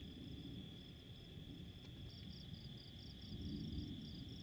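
Night insects calling: a steady high trill with a quicker pulsing chirp just above it. Underneath is a low rumble that swells a little in the second half.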